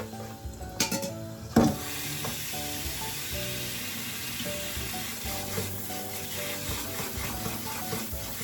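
Food going into a hot pan: a couple of knocks, then a steady sizzle of frying that starts suddenly about one and a half seconds in and keeps on. Background music plays underneath.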